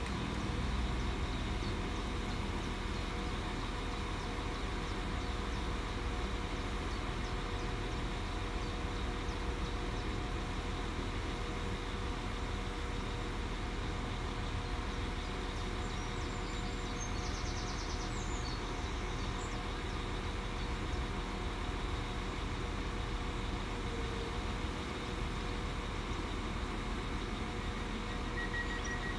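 Northern Class 195 diesel multiple unit standing at the platform with its engines idling, a steady hum with a few held tones. A beeping starts near the end.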